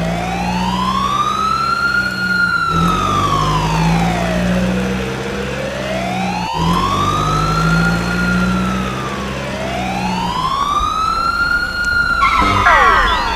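Emergency-vehicle siren wailing, slowly rising and falling in pitch about once every six seconds, over a low steady hum. A quick burst of fast falling warbles comes in near the end.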